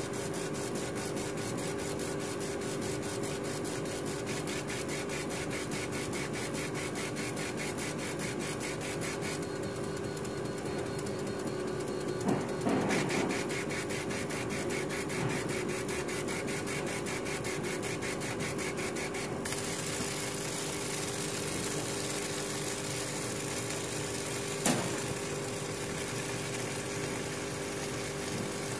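Laser engraving machine raster-engraving a rubber stamp sheet: the head's drive buzzes in a fast, even pulse over a steady hum from the machine's fan and air supply. Two brief knocks stand out, about 12 seconds in and again near the end.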